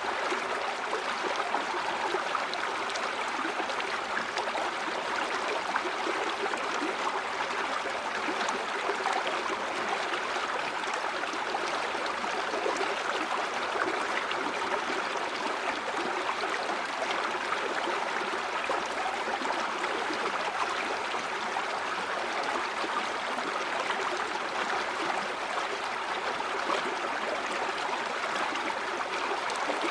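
A stream or small river flowing and splashing over rocks in a steady rush, with fine gurgling texture and no change in level.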